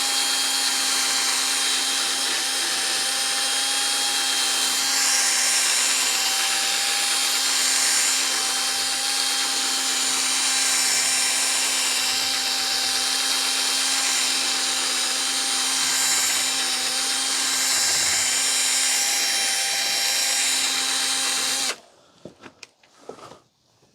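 Standard electric drill running steadily with a buffing attachment, polishing a plastic headlight lens: a constant motor whine that cuts off sharply near the end, followed by a few light handling knocks.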